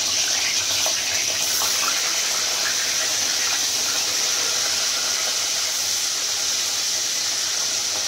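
Eggplant slices sizzling steadily as they fry in hot oil in a kadai.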